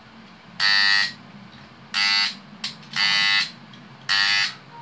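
Contactor fitted with a replacement, non-original coil buzzing loudly in four bursts of about half a second each, over a steady low hum. The magnet portion is vibrating because the gap between the magnet faces is left loose, a problem typical of changing the coil alone without the contacts.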